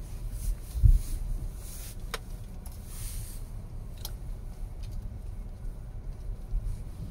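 SsangYong XLV heard from inside the cabin, driving slowly over a rough gravel track: a steady low rumble of the drivetrain and tyres, with a heavy thump about a second in and a few sharp clicks.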